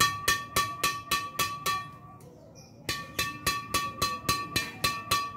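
Open palm repeatedly slapping the strung bed of a Yonex Arcsaber 7 Pro badminton racket as a sound check, at about four slaps a second. Each slap gives a sharp, ringing ping. There is a short break about two seconds in, then a second run of slaps.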